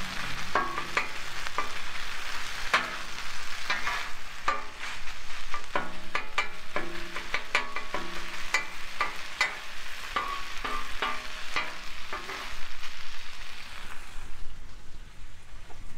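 Ground beef taco meat sizzling on a Blackstone steel flat-top griddle as its water cooks off, with frequent sharp clicks and scrapes of a tool working the meat on the griddle. The sizzle thins out near the end.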